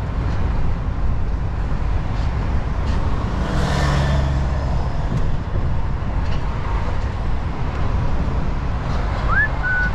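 DAF XF truck driving, heard from inside the cab: a steady low engine and road rumble. About four seconds in, a louder rushing sound swells and fades, and a short rising chirp comes near the end.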